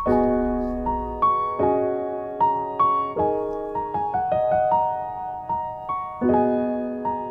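Background music: a light piano tune, single notes over chords, each struck sharply and fading away.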